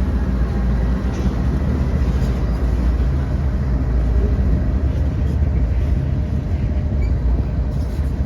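Train rolling past with a steady, loud rumble.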